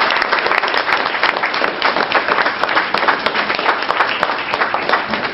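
Audience applauding at the close of a speech, many hands clapping densely and steadily.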